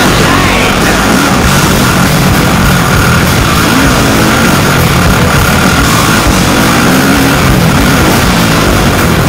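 Loud rock music, with a motocross bike's engine revving beneath it.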